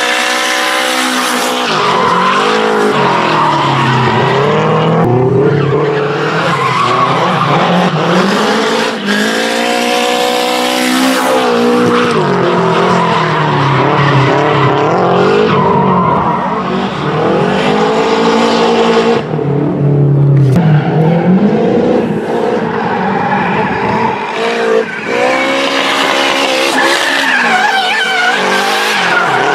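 Nissan S13 Silvia drift car's engine revving hard and falling back over and over as it drifts, its pitch climbing and dropping repeatedly, with the tyres screeching and skidding under it.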